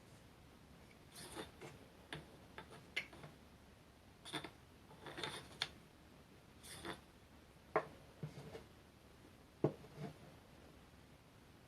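Irregular light clicks and clinks of small metal parts and tools being handled on a workbench, with a couple of sharper knocks in the second half.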